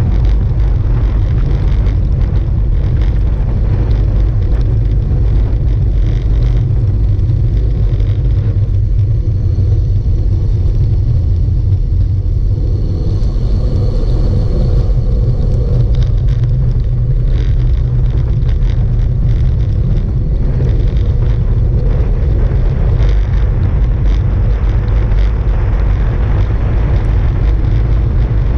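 Wind rushing over the microphone on a fast bicycle descent of a mountain pass, a loud steady low rumble.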